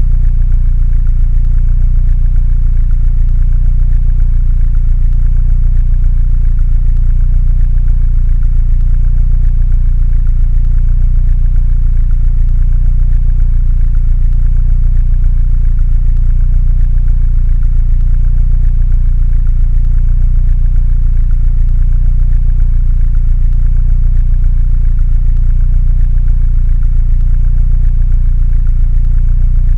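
Mini Cooper engine idling steadily, a low, even sound that does not change.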